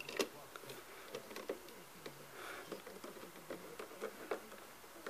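Faint irregular clicks and light scrapes of a screwdriver driving screws back into the plastic body of a coffee machine.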